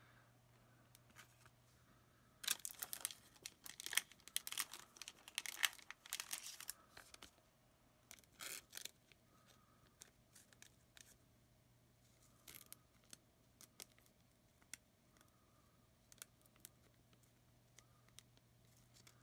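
Foil wrapper of an Upper Deck hockey card pack torn open and crinkled, in a cluster of sharp rustling from about two to seven seconds in. After that come scattered light clicks and rustles of the cards being handled.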